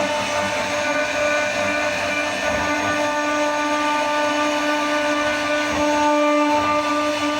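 CNC router spindle running with a steady high whine over a rushing noise.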